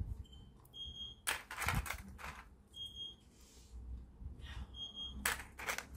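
Hard 3D-printed plastic parts clicking and rattling as propellers are picked out of a plastic tub, loudest about a second in and again near the end. A faint high electronic beep repeats about every two seconds.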